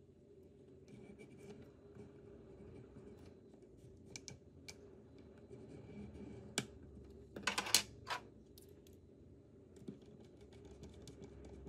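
Faint clicks and taps of small drone parts and a tool being handled during reassembly, with a quick cluster of clicks about seven and a half seconds in, over a faint steady hum.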